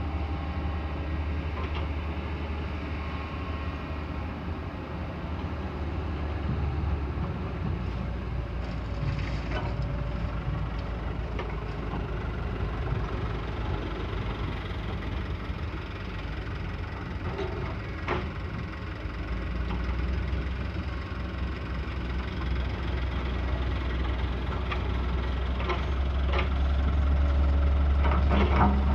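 Heavy diesel engine of an excavator running steadily, its low rumble shifting in load a couple of times. Scattered sharp knocks and clanks come through, loudest near the end.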